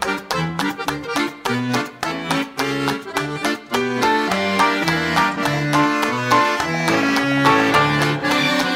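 Instrumental closing-credits theme music with a quick, even beat under a bright melody.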